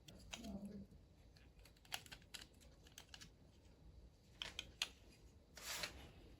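Faint, scattered small clicks and taps of hand tools and plastic parts being handled while the keyboard is taken apart, with a short scraping rustle near the end.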